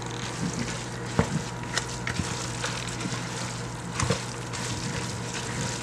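A silicone spatula stirring a wet, chunky herb-and-pepper seasoning paste in a plastic bowl: continuous wet stirring and scraping with scattered sharper clicks of the spatula against the bowl.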